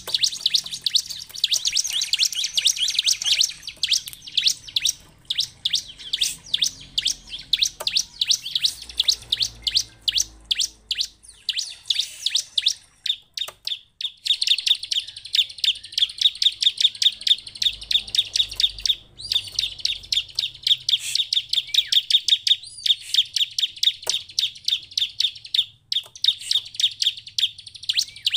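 Bar-winged prinia (ciblek) calling in fast, high-pitched strings of chirps, broken by a few brief pauses.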